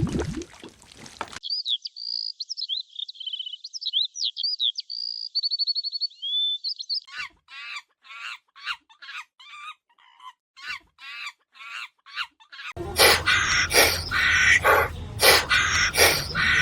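Birds calling in a string of separate recordings that cut abruptly from one to the next: a high, rapid trilling and warbling song, then short chirping calls repeated about twice a second, then louder, denser repeated calls over a noisy background.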